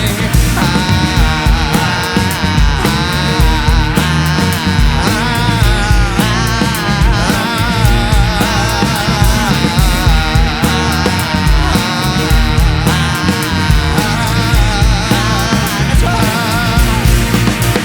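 Rock band playing live: loud, continuous rock music with drums and cymbals keeping up a steady beat under a wavering lead melody.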